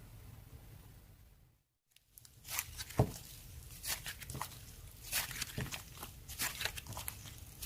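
Irregular crisp crackles and clicks of hands handling something close to the microphone, starting after a brief dropout to silence about two seconds in; a low hum before the dropout.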